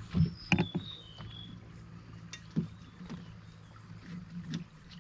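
Knocks and thumps on a small boat's hull as a person stands and shifts about in it, the loudest in the first second, over a steady low hum. Short high bird whistles sound in the first second and a half.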